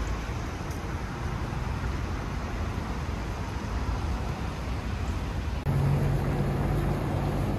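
Outdoor city traffic noise, a steady rush of passing vehicles. About two-thirds of the way in it cuts abruptly to a louder street scene with a steady low engine drone.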